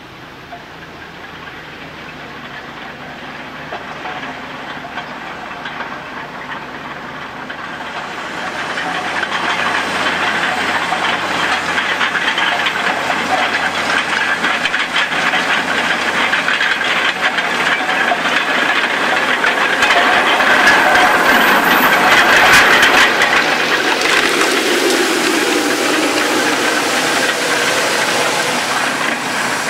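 Tractor driving a front-mounted Güttler Matador 610 roller over maize stubble while cultivating and sowing at the rear: a steady noisy hiss of the roller rings and implements working the soil, with the tractor's engine. It grows louder as the rig approaches, is loudest about three quarters of the way in, and has a short falling tone as it passes close by.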